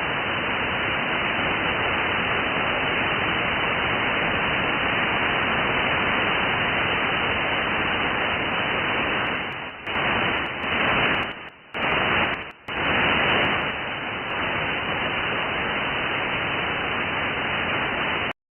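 Shortwave receiver static from a software-defined radio's audio output: a steady hiss limited to a narrow voice-band width. It dips briefly several times about ten to thirteen seconds in, then cuts off suddenly near the end.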